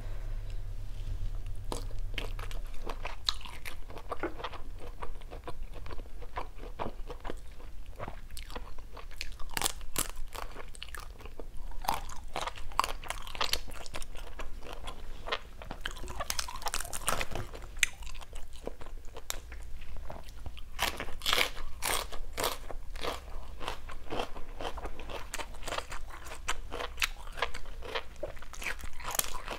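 A person chewing grilled shrimp close to the microphone, with many short crunching and biting sounds.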